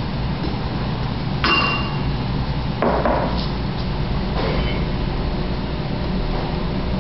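Three short knocks with a faint clinking ring, the first about a second and a half in, over a steady low hum.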